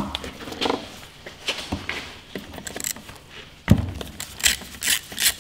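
Metal clinks and knocks of hand tools working on the two screws that hold a scooter's ignition stator, with one sharper knock past the middle and quicker clicking near the end.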